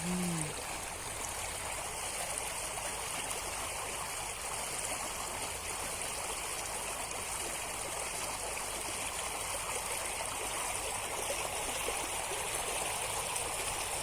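River water rushing steadily, a continuous even hiss of flowing current.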